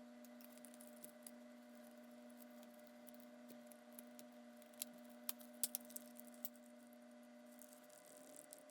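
Near silence: a faint steady electrical hum, with a few small faint clicks about five to six and a half seconds in.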